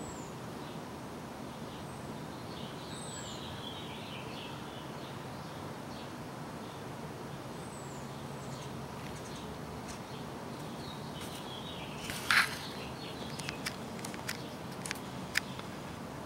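Outdoor background hiss with faint bird chirps a few seconds in and again just before twelve seconds. About twelve seconds in comes one short sharp burst, the loudest sound, then a few light clicks.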